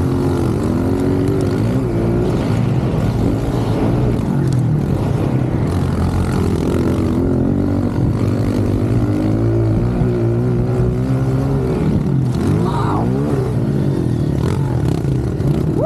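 Honda CRF125 four-stroke pit bike engines racing together on a dirt track, the nearest one loudest, its pitch rising and falling over and over as the throttle is opened and closed.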